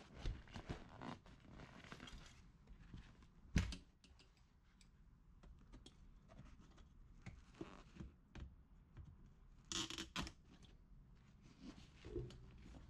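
Diagonal wire cutters snipping the wire clips that hold a car seat's cover to its metal frame: scattered sharp snips and clicks, the loudest about three and a half seconds in and a quick cluster around ten seconds in, with scraping and rustling of the old vinyl cover and foam between them.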